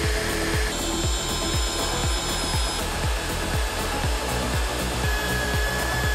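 A drill press boring through steel plate, its motor and bit cutting with a steady whine whose pitch shifts a few times, over background music with a steady beat.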